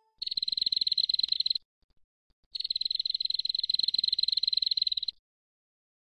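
Prenjak (prinia) giving rapid, rattling trill calls used as a bird-catching lure. There are two long bursts of fast, even pulses, the second starting about two and a half seconds in.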